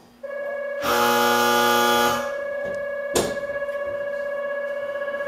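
Cable car station's electric departure bell ringing as the signal before the car leaves. A louder buzzer-like tone sounds over the bell for about a second and a half near the start, and there is a sharp click about three seconds in.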